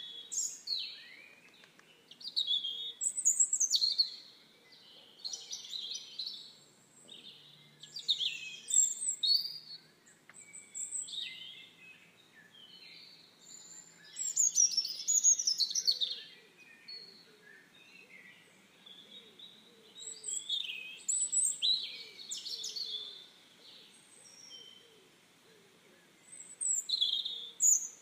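Songbird song: short, high, warbling phrases of chirps and trills that come every few seconds with brief pauses between them.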